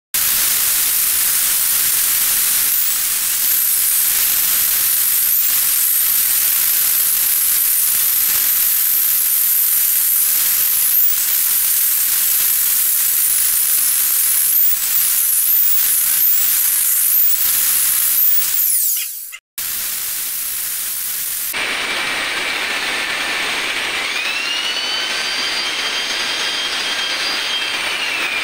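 Handheld angle grinder cutting a channel into a brick wall for wiring: a loud, steady grinding hiss with the motor's pitch wavering as the disc bites into the brick. The sound cuts out suddenly for a moment about two-thirds through. It then resumes duller, with a motor whine that rises, holds for a few seconds and falls near the end.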